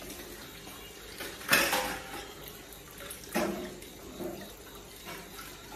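Kitchen tap running into a stainless steel sink while dishes are washed by hand, with dishes knocking together: the loudest clatter about a second and a half in, another about two seconds later, and a few lighter knocks near the end.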